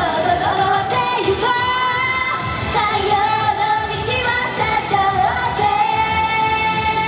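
A young woman singing a Japanese idol pop song live into a handheld microphone over amplified backing music with a steady beat, holding a long note near the end.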